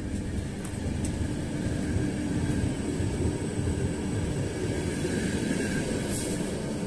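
Passenger railway coaches rolling past close by as the train moves off, a steady rumble of steel wheels on the rails with a few faint clicks, growing a little louder about two seconds in.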